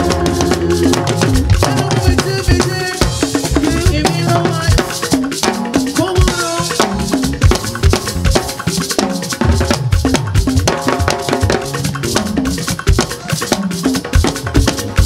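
Live Yoruba percussion ensemble: hourglass talking drums whose pitch slides up and down between strokes, over a gourd shaker rattle and drums in a fast, busy rhythm.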